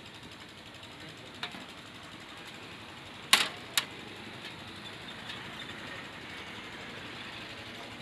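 Steady background noise of a street food stall, broken by a few sharp knocks: a light one about one and a half seconds in, then a loud one near the middle quickly followed by a second.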